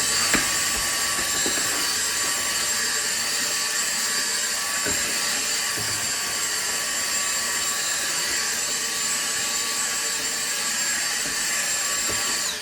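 A small high-speed electric motor running steadily with a high-pitched whine, cutting off abruptly at the end.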